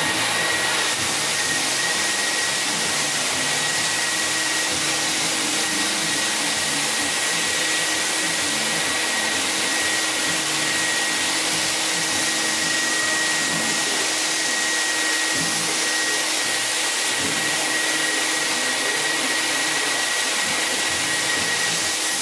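Floor buffer screening a hardwood floor, hooked up to a dust-extraction vacuum, both running steadily with a constant high whine. This is the final screening pass before staining.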